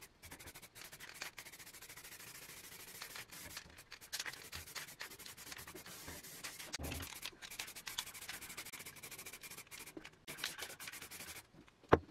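Aerosol can of filler primer spraying onto bare metal parts, a hiss that comes in long bursts with brief breaks between them. A single sharp knock near the end.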